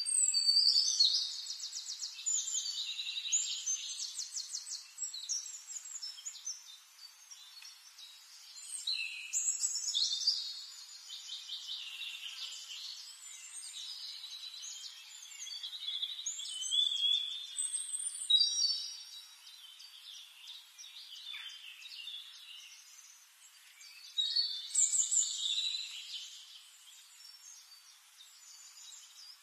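Songbirds singing: high-pitched phrases of fast chirps and trills every several seconds, loudest at the very start, with quieter chirping in between.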